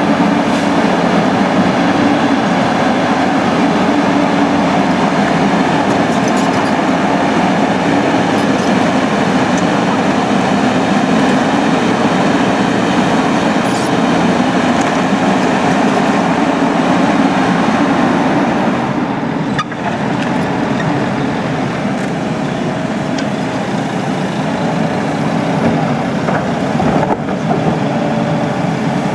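Caterpillar 320C tracked excavator's diesel engine running steadily as it digs with its hydraulic arm and bucket.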